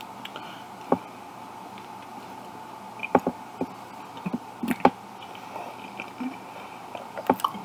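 Scattered soft wet clicks and smacks of a person chewing a hot dog, a few at a time with pauses between.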